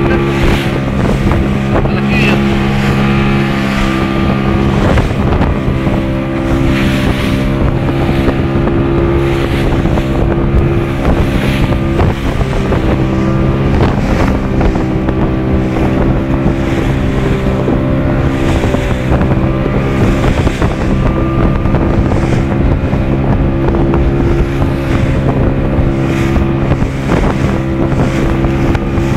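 Small fishing boat's outboard motor running steadily at speed, with the hull slapping through choppy waves, spray, and wind buffeting the microphone.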